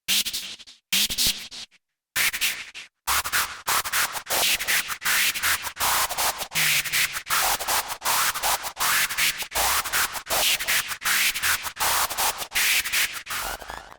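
Fred's Lab Manatee synthesizer playing a noise-based preset: harsh bursts of hiss, a few separate hits at first, then a rapid, regular run of noise bursts.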